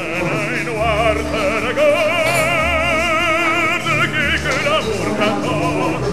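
Song on the soundtrack: a solo voice sings a melody and holds one long note with wide, even vibrato over a low bass line.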